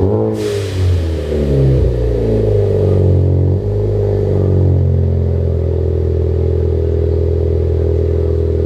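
Ford Focus ST's turbocharged engine through a newly fitted cat-back exhaust, revved in several quick blips with a short hiss just after the first, then settling to a steady idle about three and a half seconds in.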